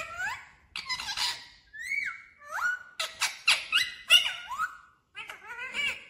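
Indian ringneck parakeets calling: a string of short, squeaky calls, each sliding up or down in pitch, with a brief pause about five seconds in.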